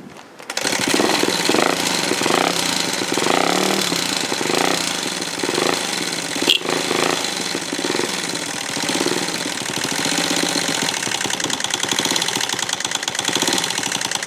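Honda AB27 Monkey's 49 cc four-stroke single idling with a loud, fast mechanical clatter from the engine, a sign of an internal fault. The sound comes in suddenly about half a second in.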